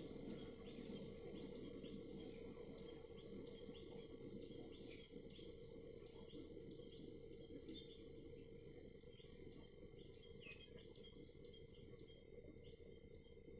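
Several birds chirping faintly, with many short, quick calls overlapping and a steady low hum underneath.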